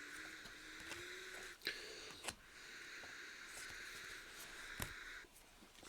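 Trading cards being handled and sorted on a table: a steady soft rustle of cards sliding against each other, with three sharp taps, the rustle stopping shortly before the end.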